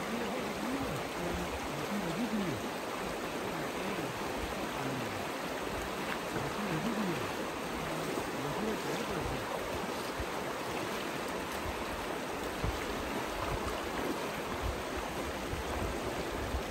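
Stream water rushing steadily over stones, an even, unbroken rush.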